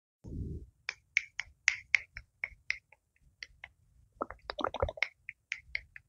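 ASMR finger sounds: fingers snapping and clicking close to a small handheld microphone, a quick string of sharp clicks at about three or four a second. A brief low thump of the microphone being handled comes at the very start, and the clicks bunch into a denser crackle around four to five seconds in.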